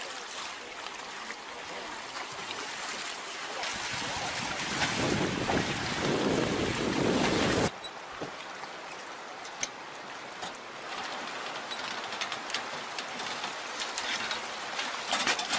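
Rushing river water running past a fish wheel, growing louder for a few seconds and cutting off abruptly about halfway. Then water splashing and dripping from the turning wheel's mesh baskets, with scattered sharp ticks and a louder splash near the end.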